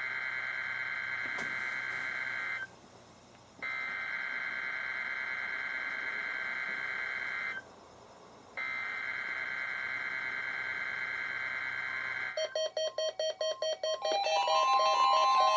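NOAA Weather Radio SAME header for the Required Weekly Test: three bursts of digital data tones, each about four seconds, with about a second of quiet between them. About twelve seconds in, the receivers' alert alarms go off with rapid beeping, then a louder steady alarm tone near the end.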